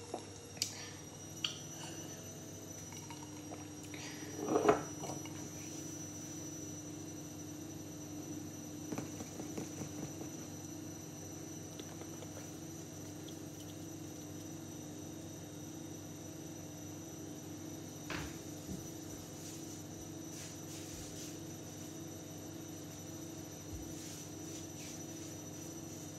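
Steady electrical hum with a faint high whine, broken by a few light knocks and handling noises, the loudest about four and a half seconds in.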